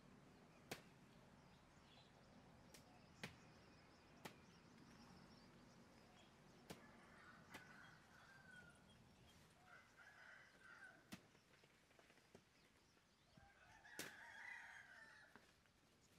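Very quiet rural ambience: faint, distant chicken calls, loudest near the end where a rooster crows, with scattered faint sharp clicks.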